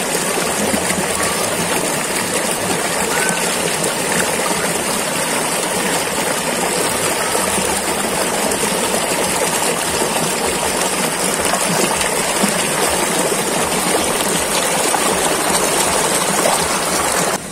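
Shallow river running fast over rocks close by: a steady, loud rush of water.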